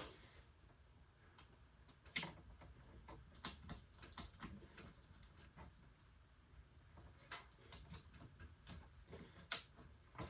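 Faint, scattered clicks and small taps of parts being handled during assembly of a diesel heater, with two sharper clicks, one about two seconds in and one near the end.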